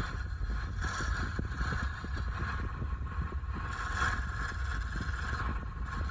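Wood lathe running steadily with a turning tool scraping and cutting the spinning palm wood blank. A constant low rumble sits under a dense chatter of small ticks, with a scraping tone that swells and eases every second or so.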